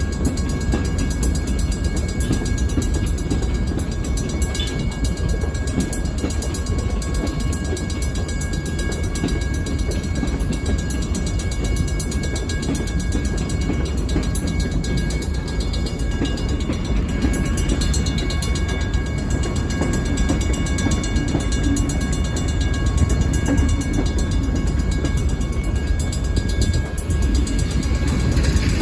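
Freight train's hopper cars rolling past a grade crossing: a steady low rumble of wheels on rail, with thin steady tones ringing above it throughout.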